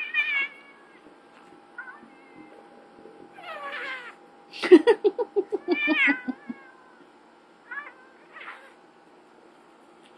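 Cats wrestling in play, meowing and yowling in about seven short calls whose pitch rises and falls; the loudest, about halfway through, is a rapid pulsing yowl.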